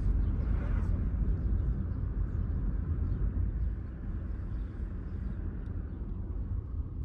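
Steady low rumble of a moving vehicle's road and engine noise, easing slightly about four seconds in.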